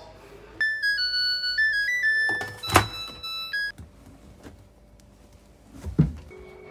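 Front-loading washing machine playing its electronic end-of-cycle tune: a short melody of pure beeping notes lasting about three seconds, with a sharp click in the middle of it. A dull thump comes about six seconds in as the wet laundry is pulled out of the drum.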